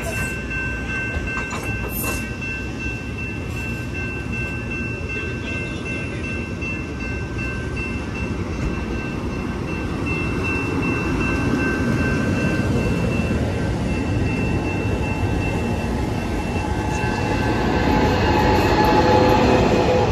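Amtrak passenger coaches rolling past at low speed, with wheel rumble and clatter and a steady high whine running through. It grows louder near the end as the trailing Siemens SC-44 Charger diesel locomotive comes by.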